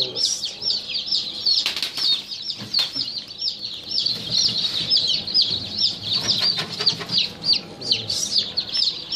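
Newly hatched chicks peeping continuously, a dense stream of short high chirps several a second. A few knocks and rustles of handling come around two to three seconds in, and again later.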